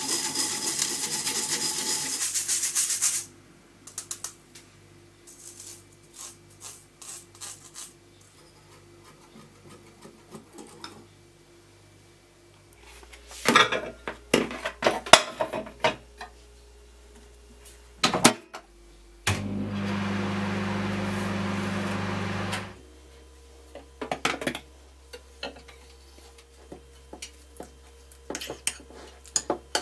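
A wire whisk scraping green tea batter through a stainless-steel mesh sieve for about three seconds, with small scrapes and taps after it. Midway come clinks and knocks as a covered bowl goes into a microwave oven, then about three seconds of the microwave running with a steady hum. Near the end, a metal spoon scrapes and clinks in a ceramic bowl while thick mochi dough is stirred.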